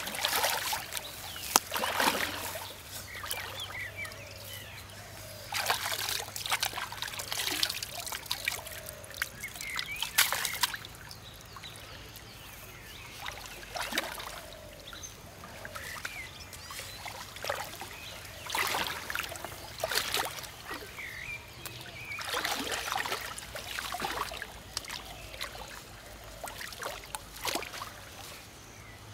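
Hands groping and splashing in shallow muddy water, with bouts of sloshing and trickling every few seconds between quieter stretches.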